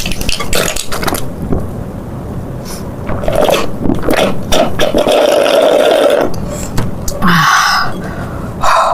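Close-miked drinking and eating sounds: a drink sucked up through a straw in a long noisy slurp near the middle, with shorter slurps and mouth clicks around it.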